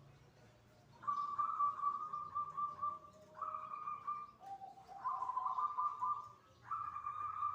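Zebra dove (perkutut) cooing: a run of rapid, trilled coo phrases starting about a second in. One long phrase is followed by several shorter ones with brief gaps, one of them lower in pitch.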